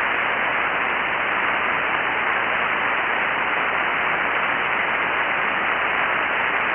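Steady static hiss from a ham radio transceiver receiving 40-metre SSB with no signal on the frequency: the open-channel band noise heard between transmissions. A dull hiss with no high treble.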